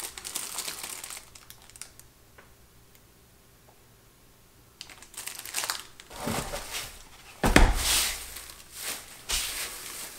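A hand rummages through shredded paper packing fill in a cardboard box, with a plastic bag crinkling around a packaged item. The rustling is light at first and goes quiet for a few seconds, then picks up, with the loudest crackle about three quarters of the way through.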